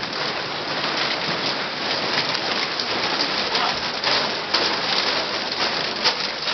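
A group of people clapping steadily, a dense patter of many hands.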